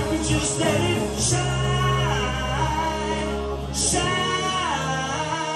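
A man singing live into a microphone over a pop backing track, holding long notes that bend up and down in pitch. The backing's deep bass drops out about four seconds in.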